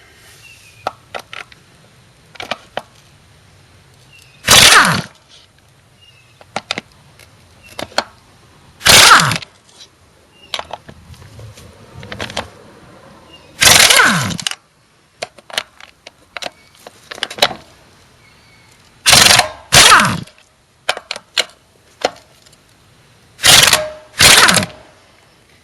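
Nitro Cat 1000 TC pneumatic impact wrench, run on compressed air at 90 psi, hammering in seven short bursts a few seconds apart as it breaks loose five nuts, with light clicks between the bursts.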